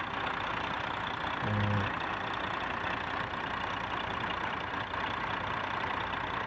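Heavy diesel truck engine idling steadily, with a brief low hum about a second and a half in.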